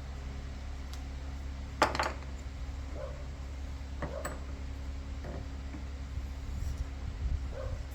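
A pause in hand filing: a steady low hum, with a few light clinks and knocks as the metal file and knife are handled, the sharpest knock about two seconds in.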